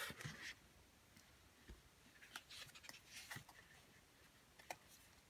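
Near silence with faint paper rustles and a few soft ticks as the pages of a sticker book are lifted and turned.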